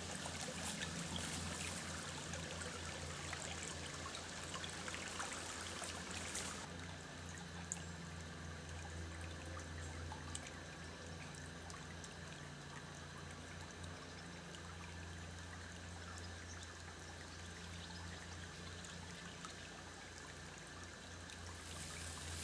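Shallow woodland creek trickling over stones, louder for the first six or so seconds and then fainter.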